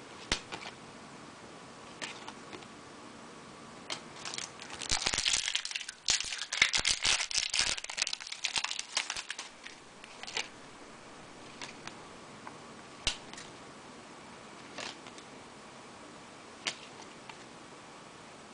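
Foil trading card pack wrapper being torn open and crinkled for several seconds in the middle, with scattered short clicks and taps of cards being handled before and after.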